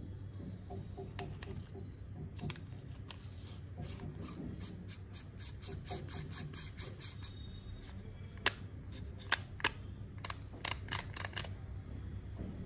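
Hands handling small hard parts and packaging: a run of light clicks and taps with some rubbing, then a few louder clicks in the second half, over a steady low hum.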